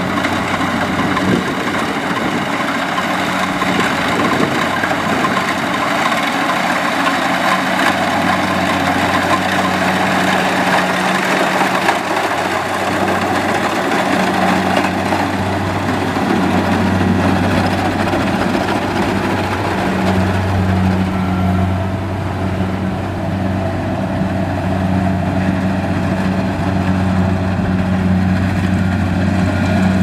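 Kubota DC70 Plus rice combine harvester running while it cuts and threshes a rice crop. Its diesel engine gives a steady low hum that grows stronger about halfway through.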